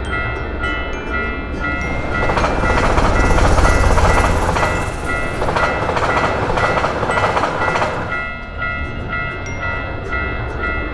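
Japanese railroad crossing bell ringing steadily in a rapid repeating two-tone pattern. A train rushes past from about two seconds in, loudest around four seconds, and fades by about eight seconds.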